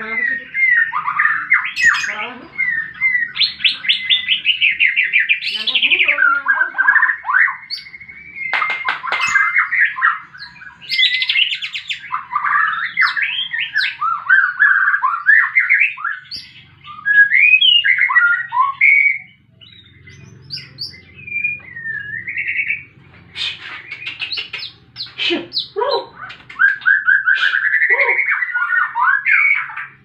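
White-rumped shama singing a fast, varied song of rapid chirps, trills and whistled sweeps, with a short break about two-thirds of the way through.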